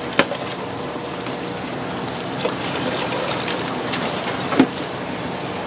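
Steady rushing, bubbling noise of aquarium fish-room equipment (air pumps and running water) with a faint hum, broken by two short knocks, one just after the start and a sharper one about four and a half seconds in.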